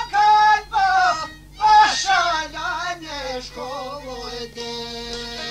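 Albanian folk song: a man singing long, ornamented phrases with wavering, bending pitch over string accompaniment. About four and a half seconds in, the voice stops and the strings carry on alone in steady held notes.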